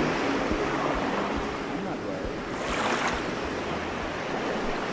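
Ocean surf on a beach: a steady wash of waves, with one wave breaking and hissing up the shore about halfway through.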